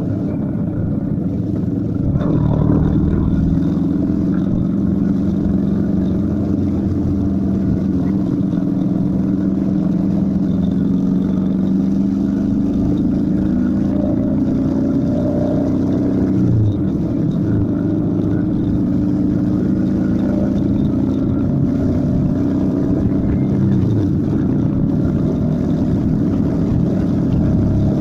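Motorcycle engine running on the road, with wind rush. A little after halfway there is a gear change, and then the engine note climbs steadily as the bike accelerates to highway speed.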